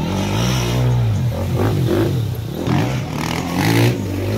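Enduro dirt bike engine revving hard, its pitch rising and falling again and again as the rider works the throttle through a deep mud-and-water pit, with mud and water spraying.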